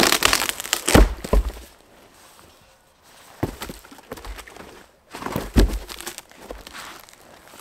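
A boot kicking and stomping a rotten stump in the snow: heavy thuds with the cracking and crunching of soft, decayed wood breaking apart. A quick run of kicks comes at the start, then two more a couple of seconds apart.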